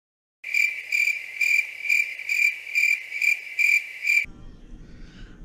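Cricket chirping sound effect: a steady high chirp repeating a little over twice a second, starting about half a second in and cut off abruptly after about four seconds. This is the stock 'crickets' cue for an awkward silence after a joke falls flat.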